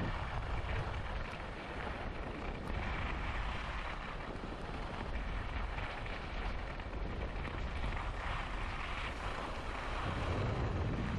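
Wind buffeting the microphone of a downhill skier, with the hiss of skis sliding over snow, steady throughout.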